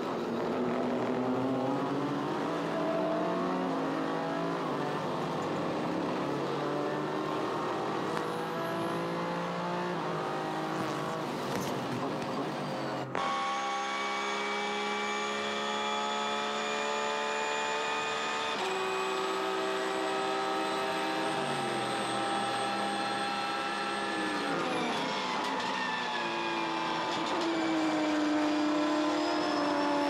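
In-car engine sound from race cars at full throttle. First the Ford EcoBoost twin-turbo V6 of a Daytona Prototype climbs in pitch through several upshifts. About 13 s in it cuts to a Porsche race car's flat-six: high revs with gear changes, a drop in pitch, then revving up again near the end.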